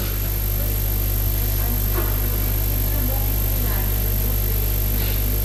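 Steady low electrical hum from the lecture hall's microphone and sound system, with faint distant voices from the audience.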